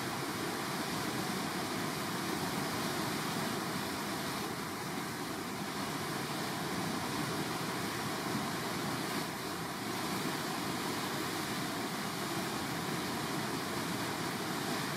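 Whitewater of a standing river surf wave rushing steadily: one even, unbroken noise.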